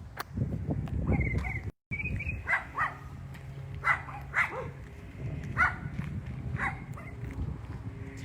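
A dog barking repeatedly behind a house, short sharp barks roughly once a second. The audio cuts out completely for a moment just before two seconds in.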